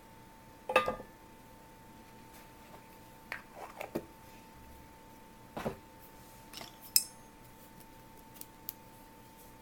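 Small metal tools clicking and clinking at the workbench during soldering, in about eight separate taps, the sharpest about a second in and again about seven seconds in. A faint steady high whine runs underneath.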